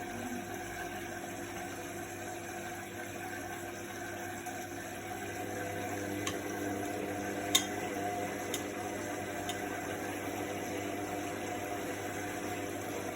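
Indesit front-loading washing machine running a quick wash: a steady mechanical hum with water sounds in the drum. A sharp click comes about halfway through, with a few fainter ticks around it.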